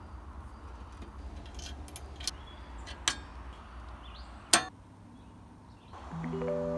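Light metal clicks as a steel cotter pin and crank arm are fitted onto a bicycle bottom-bracket spindle, then sharp mallet knocks on the cotter about three and four and a half seconds in, the last the loudest, driving the cotter home. Music begins near the end.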